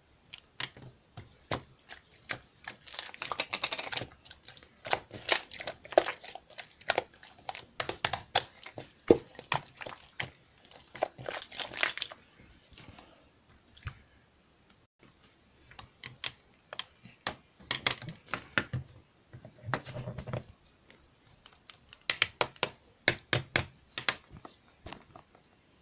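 Slime being squeezed, pressed and poked by hand, giving rapid sticky clicks, pops and crackles in bursts, with a short pause about halfway through.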